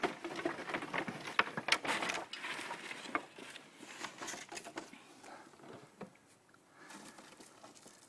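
Footsteps and loose scrap boards knocking and shifting on a pile of lumber: a quick run of clicks and knocks in the first three seconds, then fainter, scattered shuffling.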